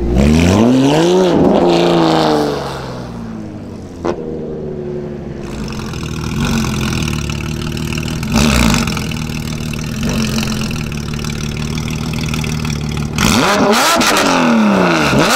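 Porsche 992 GT3 RS's 4.0-litre flat-six with a straight-piped Soul exhaust, revved while stationary: one sharp rev rising and falling at the start, then idling with a short blip about halfway through, and a quick series of revs near the end.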